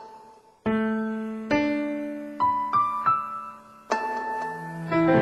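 Slow, quiet piano music: single notes and chords struck about once a second, each ringing out and fading. A low held tone comes in near the end.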